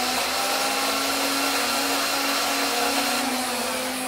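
Electric motor of a Nerf blaster whirring steadily, the flywheels of the Nerf Ultra One held spun up; the pitch dips slightly about three seconds in.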